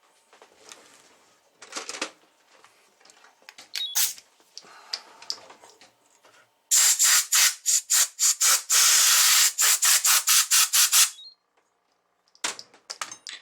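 A loud hissing spray, sputtering in a rapid string of short bursts for about four seconds and then cutting off, with light handling rustles and clicks before and after it.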